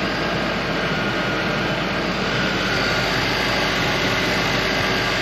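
Hearse's engine idling under the open hood with the AC on, a steady mechanical running noise with a faint high whine from the belt drive. The system is being charged with refrigerant and the new compressor's clutch is not yet kicking on consistently.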